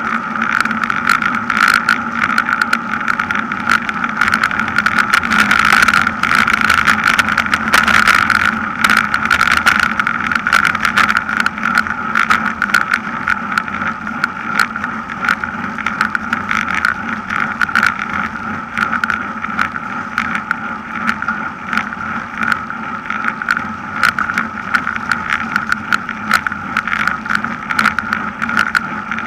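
Wind and road noise on a camera mounted on a racing bicycle riding at speed in a bunch. A steady hum is peppered with constant small rattling clicks from the road surface.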